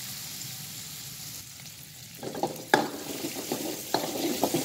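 Chopped shallots, garlic, chillies and galangal sizzling in oil in a wok as they are sautéed. About two seconds in, a metal ladle starts stirring and scraping the wok, with several sharp clinks of metal on the pan.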